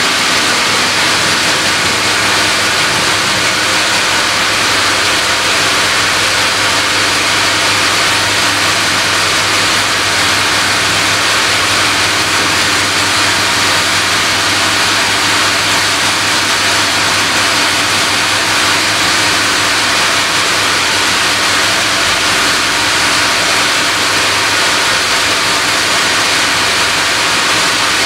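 Sawmill band saw and its machinery running steadily: an even hiss with a low hum underneath, unchanging throughout.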